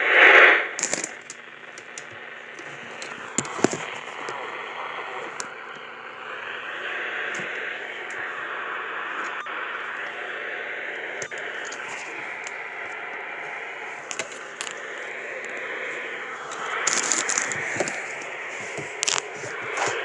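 Weather band radio giving steady static hiss with crackles and clicks while tuned between weather stations, with a loud burst of noise in the first half second.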